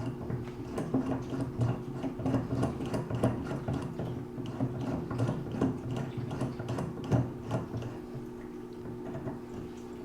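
Irregular light clicks and scrapes of metal fittings being handled and fitted together by hand: a ball valve and receiver going onto a valve recore tool. A steady low hum runs underneath.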